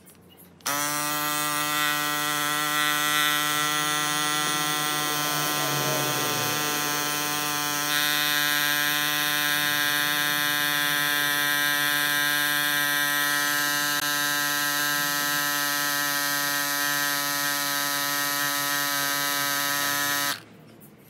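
RockBros A8 cordless electric mini pump running with a steady buzz while inflating a fat e-bike tyre. It starts under a second in, gets slightly louder about eight seconds in as the pressure climbs, and cuts off abruptly near the end once the display reaches 30.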